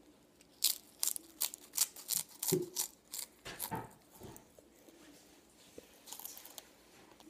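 Bites into a rolled tortilla chip and crunches it while chewing: a quick run of sharp, crisp crunches from about half a second in to about four seconds, with a few softer ones near the end.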